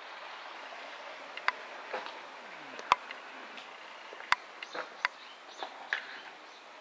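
Footsteps and scattered sharp taps on a concrete underpass floor, irregularly spaced and sometimes two or three within a second, over a steady hiss.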